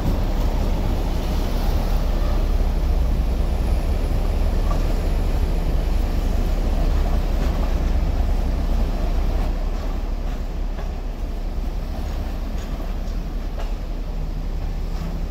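MTR Light Rail vehicle running past on the track: a steady, heavy low rumble that eases off about ten seconds in as the train moves away.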